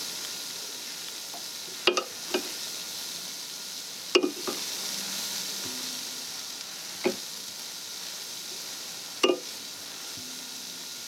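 Kitchen tongs clicking and tapping about six times as grilled shrimp are set onto a plated salad, over a steady hiss.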